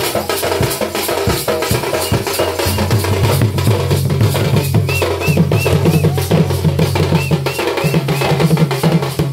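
Traditional Danda Nacha drums, a large peacock-feather-decorated barrel drum and a smaller drum, beaten in a fast, steady rhythm of about five strokes a second. A low steady tone runs underneath and steps up in pitch about three seconds in.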